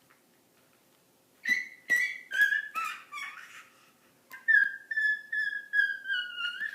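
A baby's high-pitched squeals: a few sharp, uneven squeaks, then from about four seconds in a quick run of evenly spaced squeals that slowly fall in pitch.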